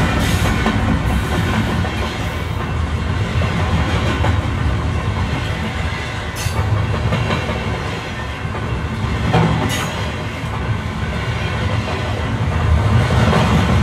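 Train running on the rails: a steady rumble and clatter, with two sharp clicks partway through.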